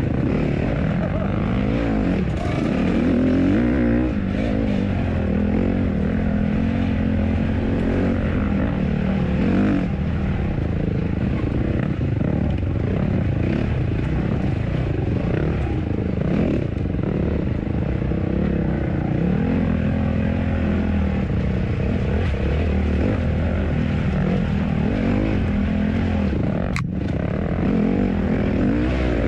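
Honda CRF150R four-stroke single-cylinder dirt bike engine running under way on a trail ride, its pitch rising and falling constantly as the throttle is worked. A single sharp click sounds near the end.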